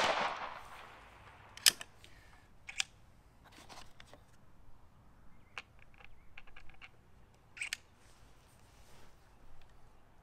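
The report of a .50 calibre Seneca Dragon Claw PCP air rifle dies away in the first second. Then come scattered sharp metallic clicks and clacks as its bolt is worked and the next slug is loaded, with a quick double click near the end.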